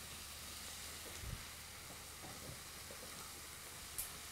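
Sliced onions and green peppers frying in a pan, a faint steady sizzle as they are stirred with a wooden spoon. There is a soft knock about a second in and a short click near the end.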